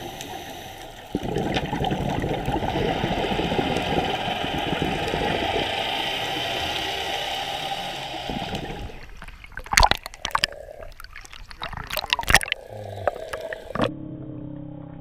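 Muffled underwater gurgling and bubbling heard through a camera housing, typical of a scuba diver's exhaled bubbles. About nine seconds in it thins out into a few sharp knocks and splashes as the camera nears the surface, followed by a quieter stretch with a low steady hum.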